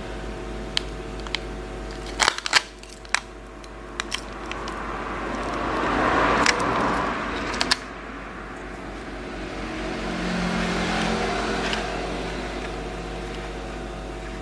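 Scattered sharp clicks and taps of small tools and parts being handled, with a cluster about two seconds in and another near eight seconds, over a steady electrical hum. A broad rush of noise swells and fades in the middle, loudest around six to seven seconds, and a weaker swell comes later.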